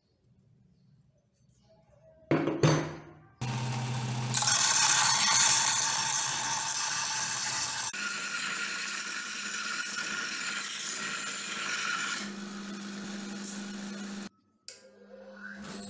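Small benchtop belt sander running, with a steel axe head pressed against the moving abrasive belt: a steady grinding hiss over the motor's hum. It starts with a loud burst about two seconds in, is loudest for the next couple of seconds, then stops abruptly near the end and starts again.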